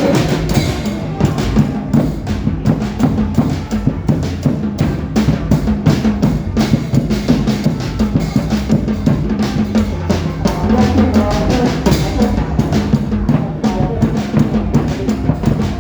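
Loud dance music with a steady, driving drum beat and heavy bass drum.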